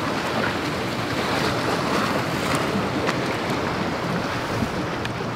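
Steady rushing noise of wind on the microphone and water moving around a small fishing boat, with no engine tone.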